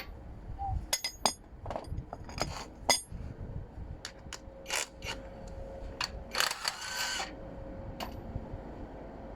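Metal tools and parts clinking and knocking against each other in a string of sharp, irregular clinks, with a longer scraping rattle about six and a half seconds in.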